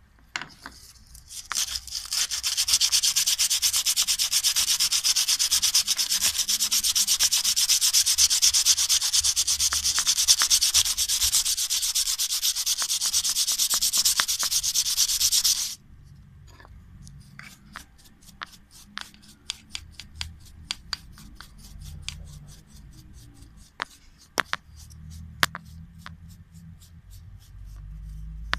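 3 mm cutter in a CNC machine's handheld rotary-tool spindle milling pine: a loud, dense rasping of chips being cut that starts about a second and a half in and stops suddenly about halfway through. After that come scattered sharp clicks over a faint low rumble.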